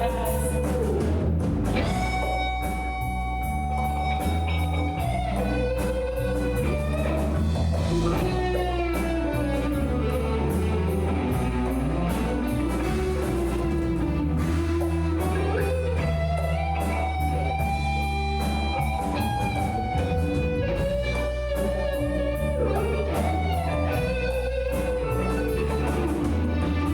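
Rock band playing live: a guitar lead line with bending, sliding notes over steady bass notes and a drum kit keeping time.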